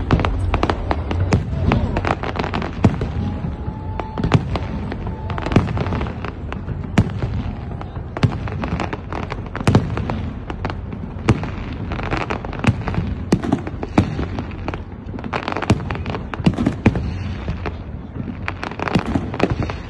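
Fireworks display: a dense, continuous run of sharp bangs and crackles from bursting shells over a steady low rumble, with no pause.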